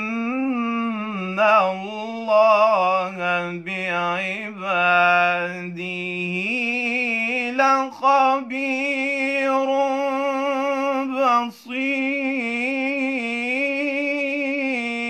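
A solo male voice recites the Quran in a melodic, drawn-out tajweed style, unaccompanied. Long held vowels are ornamented with wavering, turning pitch, with a brief break about eleven and a half seconds in.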